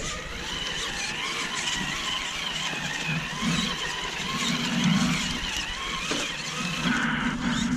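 Electric motor and gearbox of a Traxxas TRX4 RC crawler whining as it climbs over logs, the whine swelling in bursts of throttle.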